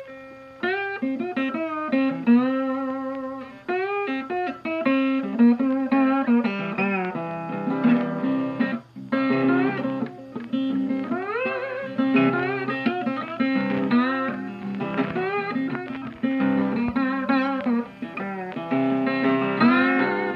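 Background music: guitar played with plucked notes and pitch bends.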